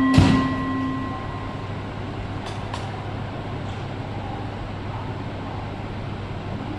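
A sharp knock just after the start as the last note of the station's departure melody fades about a second in. Then the steady hum of an N700S Tokaido Shinkansen train at the platform, with two faint clicks around the middle.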